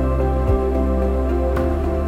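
Calm, new-age background music: sustained notes over a low bass, with a soft beat about once a second.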